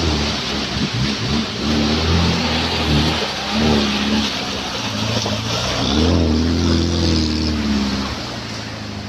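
Suzuki Katana 4x4 engine revving up and down in low gear as it drives through mud past the listener, then fading away near the end.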